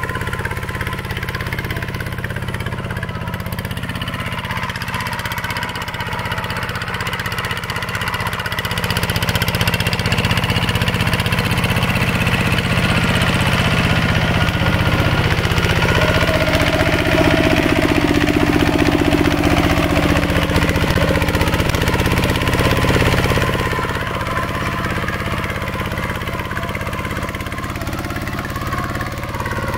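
Mini tractor's engine running steadily while plowing a field, getting louder about a third of the way in and dropping back again a few seconds before the end.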